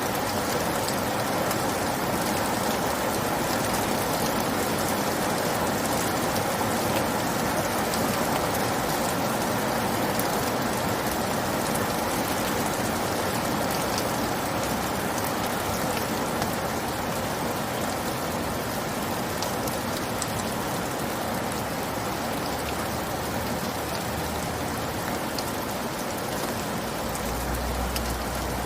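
Steady rain falling, a continuous hiss with many single drops ticking through it. A low rumble comes in near the end.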